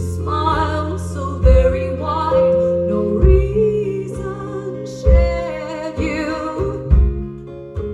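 Live acoustic band music: strummed acoustic guitar with wavering held vocal notes over a heavy low beat that lands about every two seconds.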